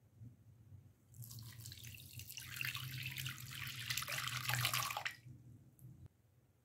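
Milk poured from a drinking glass into an empty glass bowl. It splashes for about four seconds, grows louder toward the end of the pour, then stops abruptly.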